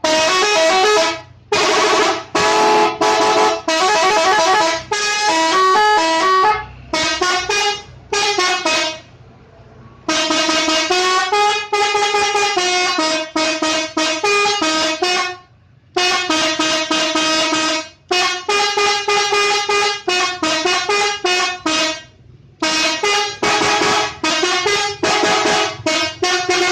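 Telolet multi-tone air horn playing its jingle-like tunes: the pitch jumps between notes several times a second, in phrases broken by short pauses.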